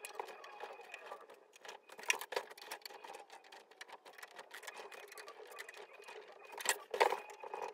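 Hand Phillips screwdriver tightening machine screws into the side of a Behringer X32 mixing console's metal chassis: a run of small metallic clicks and scrapes, with louder knocks about two seconds in and near the end.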